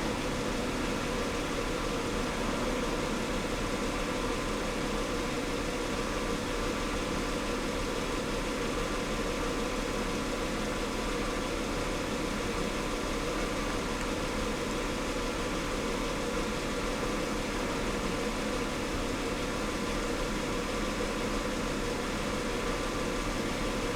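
Holden Commodore engine idling steadily at operating temperature, with its new radiator and fresh coolant in and the cooling fans switched off.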